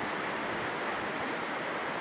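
Ocean surf washing onto the beach, a steady, even rush of noise.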